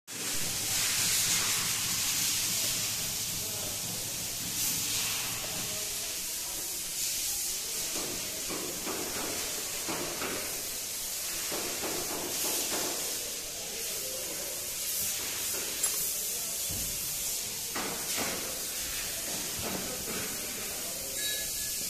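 Steady hissing workshop background noise, with a low hum in the first few seconds and a few faint knocks.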